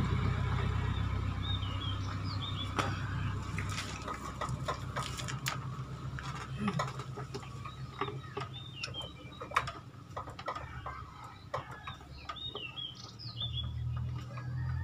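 Light, irregular metallic clicks and taps of a hex key working the clutch adjuster on a Yamaha Sniper 150's clutch. Birds chirp in short bursts in the background over a low steady hum.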